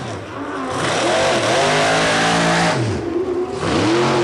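Old racing pickup truck's engine revving hard. Its pitch swoops up and down several times over a loud rushing noise.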